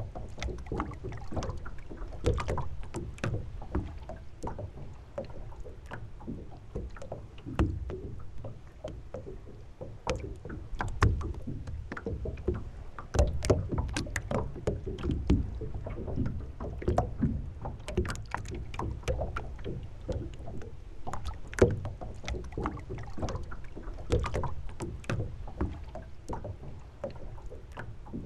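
Water lapping and slapping against the hull of a moored sailing boat, with a low steady wash and many irregular small knocks and clicks.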